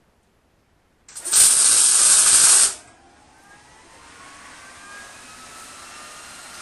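Electric arc welder laying a tack weld on a steel leg of a striking anvil: about a second in, the arc strikes with a crackle and runs as a loud steady hiss for about a second and a half, then cuts off sharply. A fainter steady whir follows, slowly rising in pitch.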